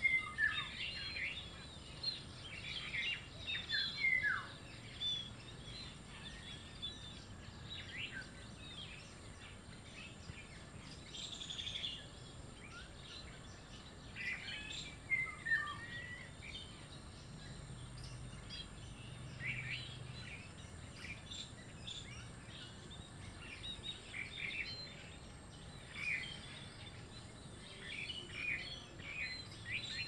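A flock of scaly-breasted munias calling: scattered short chirps and a few falling whistles, bunched in clusters near the start, in the middle and near the end, over a steady outdoor hiss.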